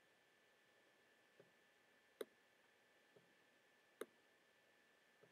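Near silence broken by a few computer mouse clicks: two distinct clicks about two and four seconds in, with two fainter ones between them.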